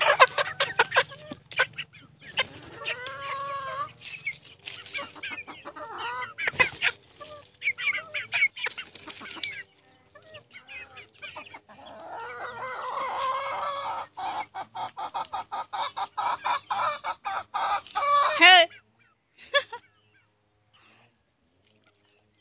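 Chickens clucking and calling, with fast runs of clucks and drawn-out squawks. The calls are thickest in the second half and break off a few seconds before the end.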